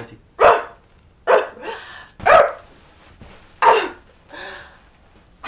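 A woman imitating a dog, giving short barks: four loud barks about a second apart, then a softer one.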